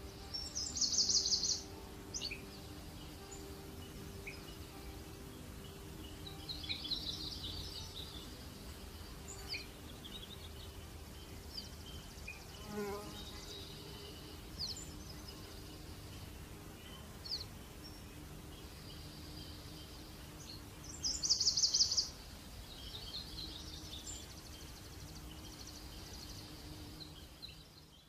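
Forest ambience: a songbird sings a short, high, rapid trill about a second in and again about twenty seconds later, with scattered short high chirps from other birds between. Under them runs a faint, steady low buzz of flying insects.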